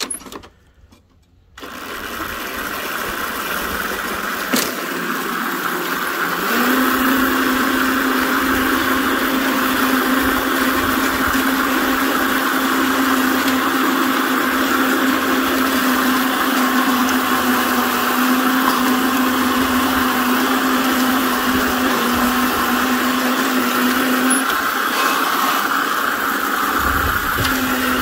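McLane reel mower driven by a 2000 W brushless DC motor in place of its gas engine, running as it is pushed across short lawn grass: the whir of the motor, chain drive and spinning reel. It winds up over the first few seconds to a loud, steady hum, with a sharp click early on, and the hum tone drops out for a couple of seconds near the end.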